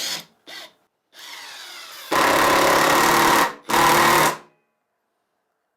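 Cordless brushless impact driver (Parkside Performance PDSSAP 20-Li B2) running briefly, then hammering for about a second and a half while driving a fastener. After a short pause it hammers again more briefly.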